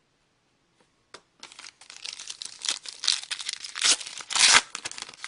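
A trading-card pack wrapper being torn open and crinkled: a click about a second in, then dense crackling, loudest in two sharp rips near the end.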